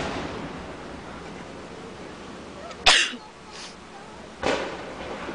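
Aerial firework shells exploding: the bang of a burst fades away at the start, then a sharp bang comes about three seconds in and another about a second and a half later.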